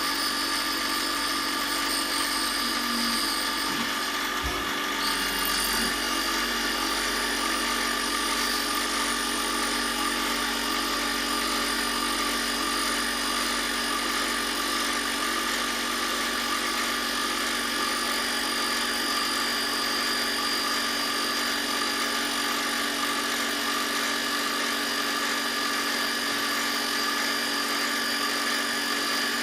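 Power tool motor running steadily, with a brief knock and a shift in its tones about five seconds in.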